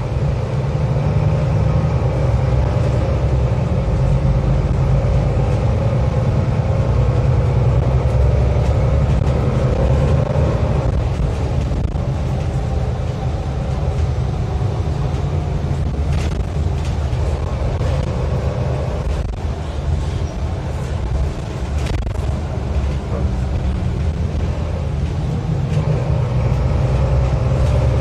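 Cabin noise of a moving city bus: a steady low rumble of engine and road, with a few faint rattles about two-thirds of the way through.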